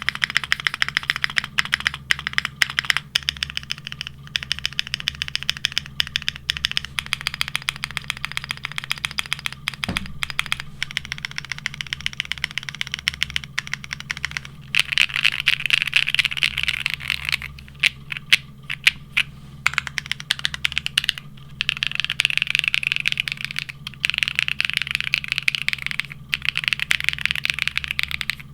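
Continuous fast typing on a Neo65 mechanical keyboard with Aifei ABS keycaps: a dense run of key clacks, with brief pauses and quicker, busier stretches in the second half.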